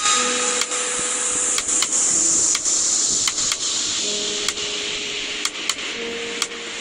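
A steady hiss with scattered light clicks and taps from a glue bottle and small cut paper pieces being handled on a tabletop.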